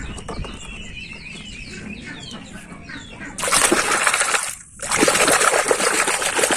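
A hand churning and splashing muddy water hard while scrubbing mud off toy trucks. It starts suddenly about halfway through, breaks off for a moment, then carries on.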